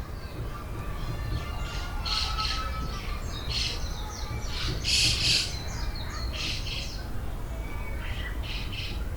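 Birds calling in woodland: short harsh squawking calls, often in pairs, repeated every second or so and loudest about five seconds in, with fainter thin whistled notes and a steady low rumble underneath.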